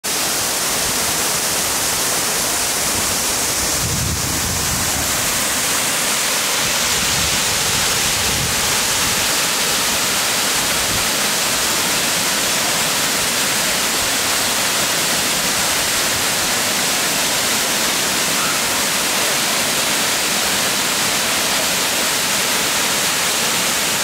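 Ellinjaa Falls, a waterfall pouring down a rock face into a plunge pool, with a steady rush of falling water.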